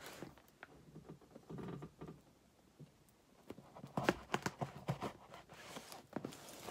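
A knife stabbing and knocking into a taped cardboard shipping box, with a quick run of sharp knocks about four seconds in, then a short scraping cut near the end.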